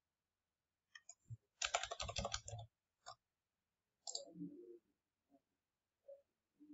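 Faint computer keyboard typing and mouse clicks: a few single clicks, a quick run of keystrokes about two seconds in, then more scattered clicks.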